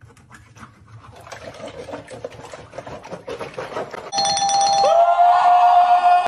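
Faint clicking, then about four seconds in a chime-like electronic tone sounds. Just after it a man gives a long high cry that slides up and then holds one note, in imitation of a rooster crowing.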